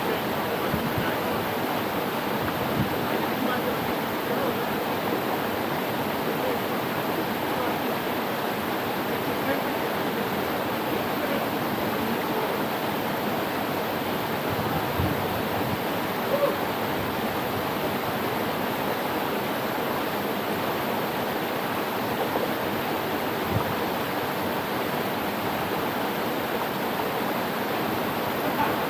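Steady rush of flowing and falling water from a tropical mountain stream, an even hiss with a few faint brief knocks.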